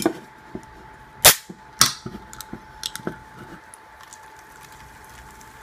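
Aluminium can of sparkling water pulled open by its tab: a sharp crack about a second in, a second crack half a second later, then a few small clicks.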